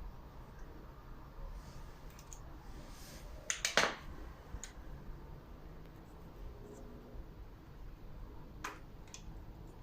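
A few sharp metallic clicks and taps from hand tools and parts being handled while the gear selector is taken apart: a quick cluster of clicks about three and a half seconds in, and two single clicks near the end.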